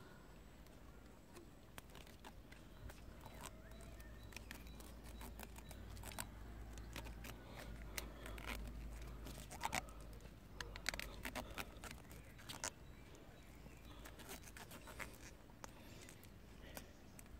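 Faint crinkling and scattered clicks of plastic grafting tape being stretched and wound around a bud graft on a cherry branch, over a low steady rumble.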